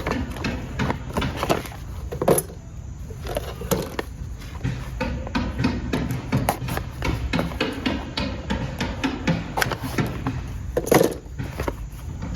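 Irregular knocks, taps and clatter, a few louder thumps among them, over a steady low rumble.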